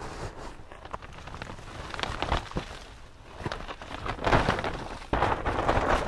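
Footsteps crunching in snow, a few heavy steps growing louder in the second half, with small crackles before them.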